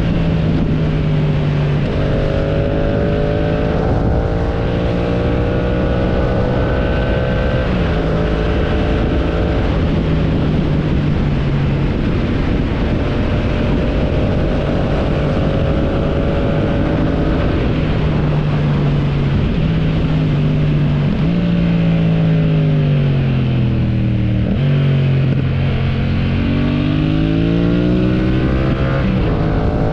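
Motorcycle engine under way, its note climbing steadily as it accelerates, with breaks where it shifts gear. Late on, the revs drop away, then rise again as it pulls away once more.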